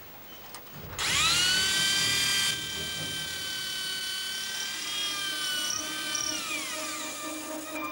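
Handheld electric drill starting about a second in, its whine rising quickly to full speed and holding steady, dropping in level shortly after, then winding down with a falling pitch near the end.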